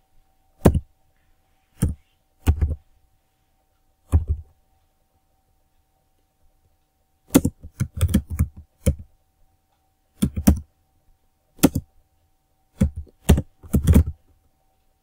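Keys typed on a computer keyboard: a few separate keystrokes in the first few seconds, then quicker runs of strokes from about seven seconds in.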